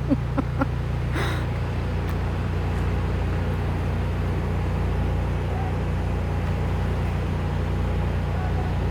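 Vehicle engine running steadily, a constant low hum.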